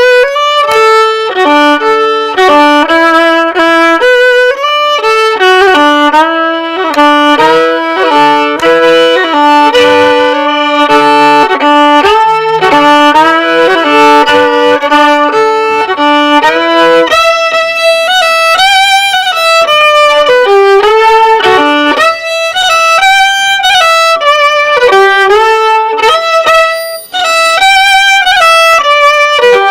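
Violin playing a quick melody, with notes changing several times a second.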